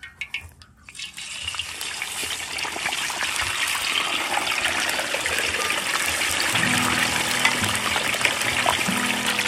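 Deep-frying sizzle: a whole scored fish going into a wok of hot oil, which breaks into a loud, dense sizzle about a second in and keeps sizzling steadily.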